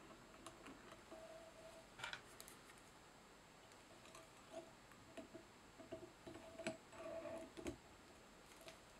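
Faint, scattered small clicks and light handling sounds as a metal whip-finish tool and a thread bobbin are worked around a fly's thread head.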